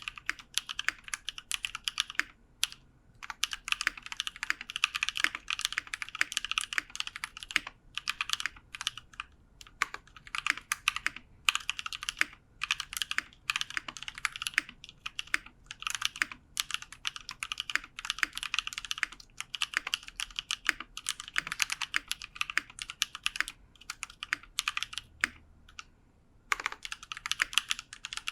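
Typing on a KBDfans 5° 60% mechanical keyboard with a brass plate, case foam, cleaned and lubed Holy Panda tactile switches and GMK keycaps: fast runs of keystrokes with short pauses between them.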